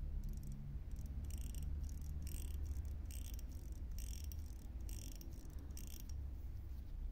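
A Corgeut Flieger pilot watch's 6497-type manual-wind movement being wound at the crown: the click ratchets in six short bursts of fine clicking, about one a second, one per turn of the crown.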